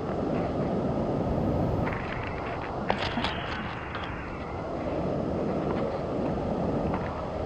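Steady rushing noise of a nearby waterfall, with a few sharp clicks about three seconds in as the hiker works down the rope.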